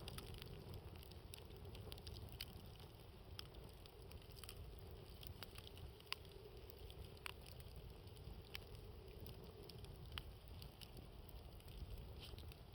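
Wood campfire crackling, with irregular sharp pops over a steady low rumble of wind.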